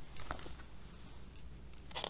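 Faint soft rustles of a paperback picture book being handled, with a slightly louder rustle near the end.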